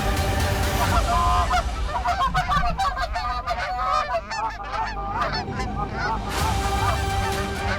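Canada geese honking and clucking, many calls overlapping in a busy chorus that is thickest in the middle of the stretch.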